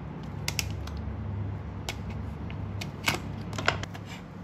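A plastic sausage packet crinkling and crackling as a ceramic knife slits it open, then sharp knife taps on a bamboo cutting board, the two loudest about three seconds in and half a second apart, over a steady low hum.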